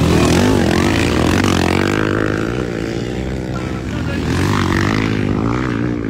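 Motocross dirt bike engines revving as the bikes race past on the dirt track, their pitch rising and falling with the throttle.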